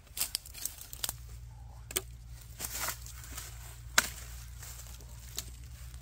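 Footsteps crunching through dry leaf litter and brush, with irregular snapping of twigs and rustling of leaves; a sharp crack about four seconds in is the loudest.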